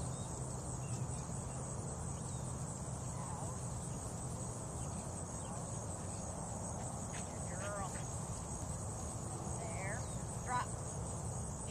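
Insects droning steadily at a high pitch, with a few short chirping calls in the second half.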